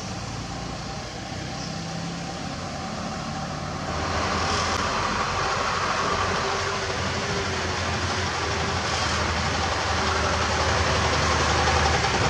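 Isuzu Giga FVZ 285PS self-loader truck's diesel engine running as the truck, carrying an excavator, drives slowly up and passes at close range. The sound grows clearly louder about four seconds in and keeps building as the truck comes alongside.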